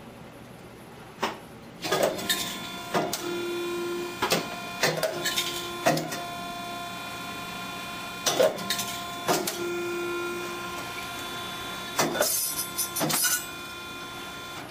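Automatic steel-rule processor feeding, cutting and marking die-making rule: its feed motors hum steadily, with a brief whine twice, under about a dozen sharp clacks from the cutting, mitering and bridge-and-mark tools.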